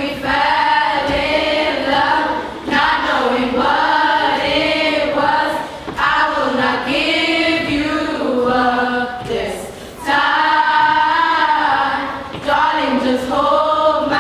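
A choir singing a slow love song in long, held phrases with short breaths between them.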